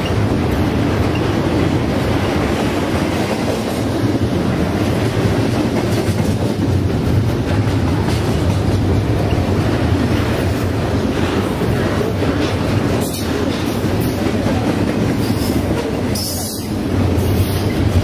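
Double-stack intermodal container freight train passing close by at speed: a loud, steady rumble of its cars and wheels running on the rails.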